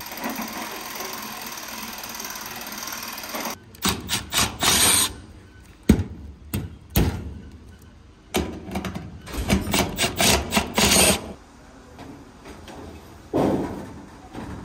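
Tool and metal-handling noise from taking down an old air handler. A steady rushing noise runs for about the first three and a half seconds, followed by clusters of sharp knocks, clunks and short tool bursts.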